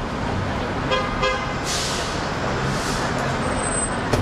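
Steady rumble of curbside traffic, with a vehicle horn giving two short toots about a second in and a brief hiss shortly after.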